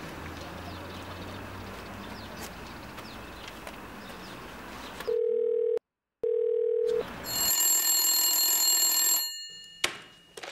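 A phone call going through: two short bursts of a steady ringback tone, then a desk telephone ringing for about two seconds, followed by a sharp click as the handset is picked up near the end. Quiet open-air background before the call.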